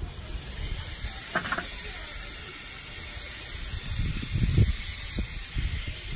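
A steady hiss, with a few low thumps about four to five seconds in.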